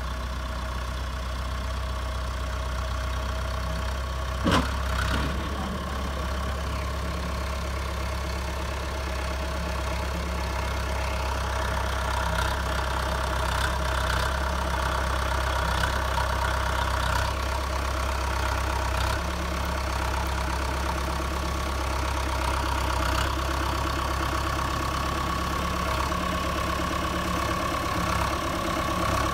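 YTO tractor's diesel engine running steadily as the tractor pushes a load of soil with its front dozer blade. A single sharp knock comes about four and a half seconds in.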